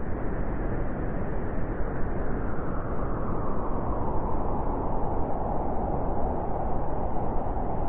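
Steady white-noise sleep track: an even, muffled noise with most of its weight in the low and middle range and little treble. A band in the middle grows a little stronger about halfway through.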